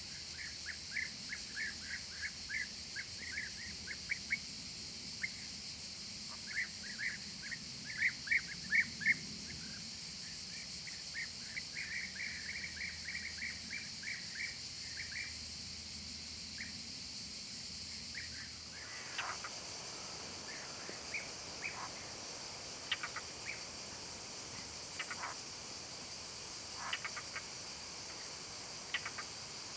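Steady high-pitched insect chorus, with a bird giving quick runs of short chirps, several a second, through the first half. About two-thirds in the background changes, and scattered single chirps and calls follow.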